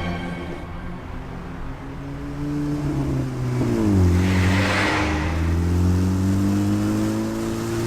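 Car engine accelerating, its pitch climbing, dropping suddenly a little under four seconds in as at a gear change, then climbing steadily again. A brief rushing noise comes just after the drop.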